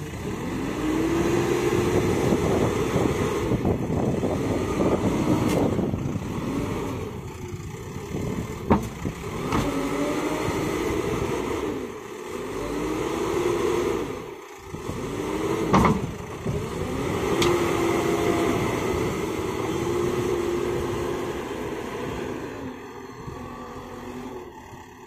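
JCB backhoe loader's diesel engine running under load, its pitch rising and falling again and again as it revs. Two sharp knocks stand out, about nine and sixteen seconds in.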